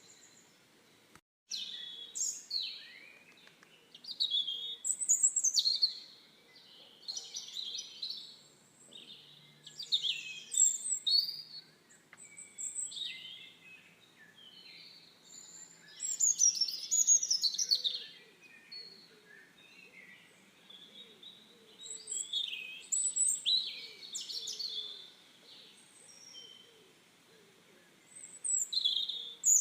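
Songbirds singing: short, varied, chirping phrases with quick rising and falling whistles, coming in bursts every one to three seconds, over a faint outdoor background. The sound cuts out completely for a moment just over a second in.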